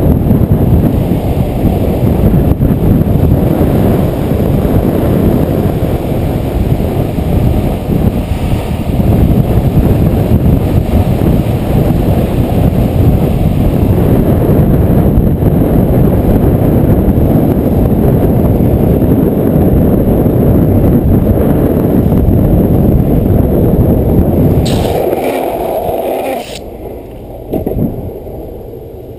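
Wind rushing over a helmet-mounted microphone with the rumble of a downhill skateboard's wheels on asphalt at speed. About 25 seconds in a brief hissing scrape is heard, then the noise drops away sharply as the board slows.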